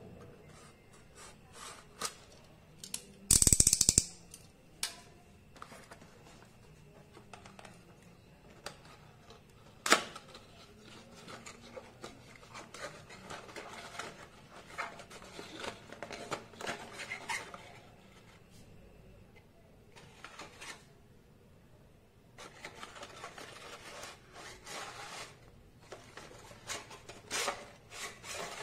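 A utility knife slicing into a cardboard box: one loud rasping cut lasting under a second, about three seconds in. After it come a sharp click and a long stretch of cardboard packaging rubbing, scraping and clicking as the box is opened and its inner tray slides out of the sleeve.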